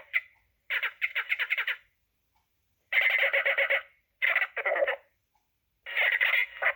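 Droid Depot astromech droid chirping and warbling in R2-D2-style electronic beeps, the sound effects of its orange personality chip. Four short bursts, each about a second long, with brief pauses between them.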